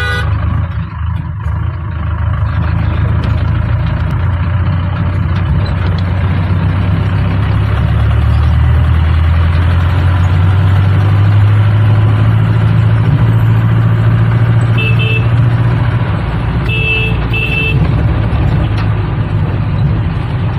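Car engine and road noise heard from inside the cabin while driving, a steady low hum that grows louder about halfway through. Near the end come three short horn beeps: one, then a quick pair.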